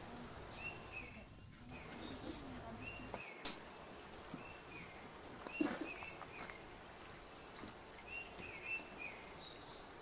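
Birds calling outdoors, a short chirping phrase repeating every couple of seconds over a low steady background. Two faint clicks come a few seconds in.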